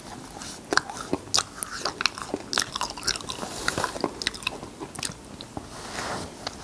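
Close-miked mouth sounds of a person eating cotton candy: many sharp, sticky lip and tongue clicks and smacks as the sugar floss melts in the mouth, several a second.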